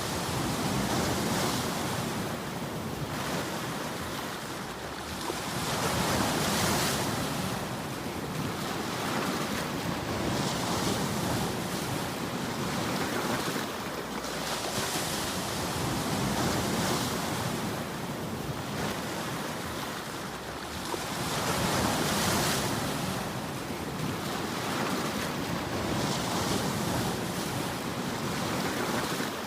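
Sea waves breaking and washing over a rocky shore: a continuous rush of surf that swells and eases every few seconds, with some wind on the microphone.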